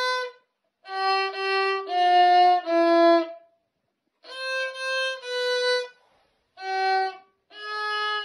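Solo violin played by a child: a slow melody of held, sustained notes in short phrases, with brief pauses between the phrases.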